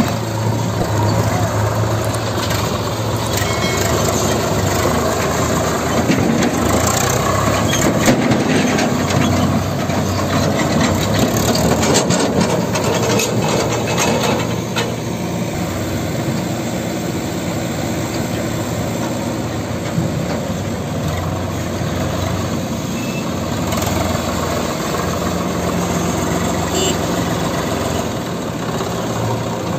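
Diesel engines of a Swaraj 744 FE tractor with a loaded trolley and of a JCB backhoe loader close by, a steady low drone throughout. A run of knocks comes roughly a third to halfway through.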